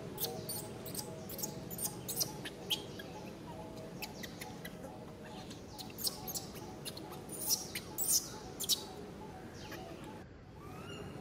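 Newborn macaque squeaking: many short, high-pitched squeaks in irregular succession, loudest around two-thirds of the way in.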